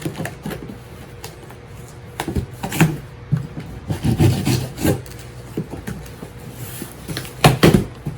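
Handling noise: irregular rubbing and knocks in several short clusters, loudest near the end.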